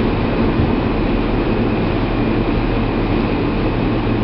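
New York City Subway E train car in motion, heard from inside: a steady, loud running rumble of wheels on rails and the car under way, with a faint high whine over it.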